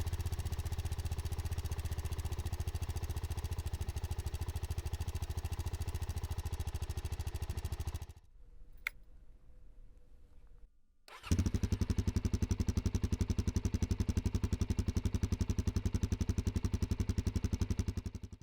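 Suzuki DR-Z400S and DR-Z4S single-cylinder dual-sport motorcycle engines idling one after the other with an even, steady beat. The first stops about eight seconds in; after a short gap with a click, the second engine comes in abruptly about eleven seconds in and runs louder.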